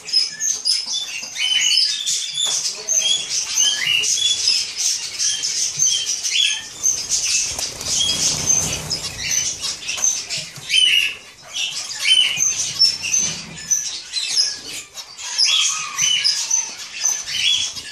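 A flock of zebra finches calling, many short calls overlapping without pause, with wing flutters as birds fly to and from the seed dish.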